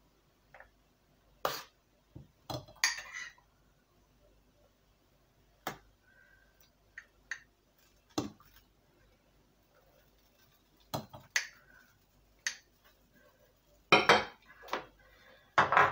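Metal spoon clinking and knocking against a stainless steel pot and glass jars as nectarine halves in syrup are scooped out and put into the jars: irregular single clinks with quiet between, a few ringing briefly, and the loudest knocks coming close together about 14 seconds in.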